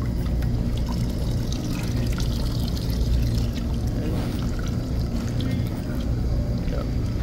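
Glycol trickling and dripping from an opened brass automatic balancing valve as its body is unscrewed by hand, with small metallic ticks. A steady low machinery hum runs underneath and is the loudest part.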